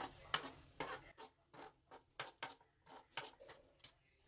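Metal spoon scraping around a steel kadai while stirring frying onions: a quick run of light, short scrapes, about four or five a second, that die away about three and a half seconds in.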